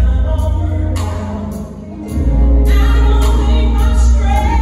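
Live gospel song: a woman singing into a microphone over an amplified band with heavy bass and regular drum hits. The music dips briefly about two seconds in, then comes back in full.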